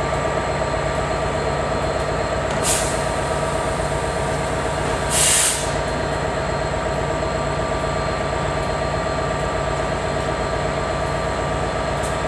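A diesel High Speed Train's Class 43 power car idling with a steady hum. Two short air hisses cut in, a small one about two and a half seconds in and a louder one about five seconds in.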